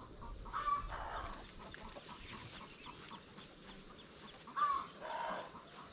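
Chickens clucking in short calls, about a second in and again near five seconds, over a steady high-pitched insect drone.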